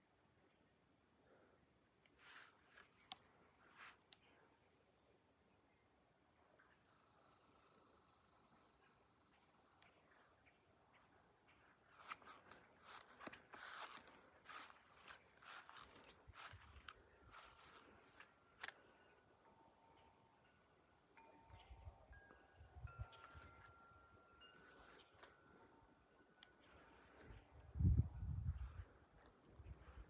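Insects trilling steadily in a high-pitched summer chorus, one trill pulsing rapidly, over faint footsteps along a path. A brief low thump comes near the end.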